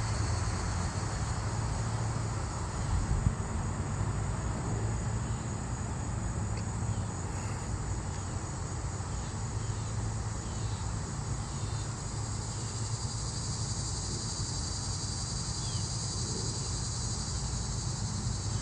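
Steady outdoor background of insects droning in a continuous high-pitched chorus, over a low, even rumble.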